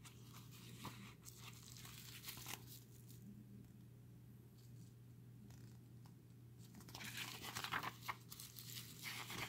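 Pages of a paperback booklet being turned and handled: faint paper rustling at first, then louder rustling and crinkling over the last two or three seconds.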